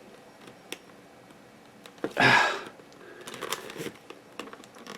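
Small clicks and rustles of plastic being handled as a stick-on GoPro adhesive mount is pressed onto a helmet. A short breathy rush comes about two seconds in.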